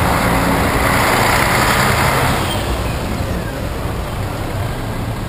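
Large tour coach passing close by, its engine running with a loud rushing hiss that fades after about two and a half seconds, leaving steady street traffic noise.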